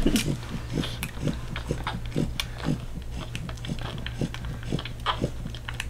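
Newborn French Bulldog puppy suckling at its mother's teat: soft wet smacking and clicking of its lips, about two to three a second.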